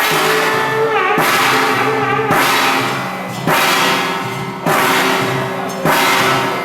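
Ceremonial temple-festival music: a pitched melody line with bending notes over loud percussion crashes that come about every 1.2 seconds.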